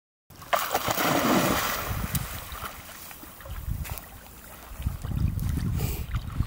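Wind buffeting the microphone, mixed with water noise at a lakeshore, starting abruptly just after the beginning; a loud rush of noise in the first second or so, then low rumbling gusts near the end.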